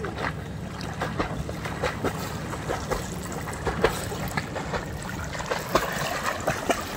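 River water lapping and splashing right at the microphone, with many quick splashes from a swimmer nearby.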